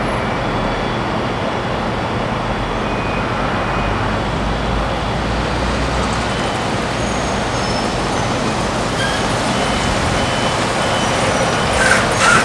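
Steady rushing noise of a small business jet's turbofan engines as it rolls along the runway, with a few sharp clicks near the end.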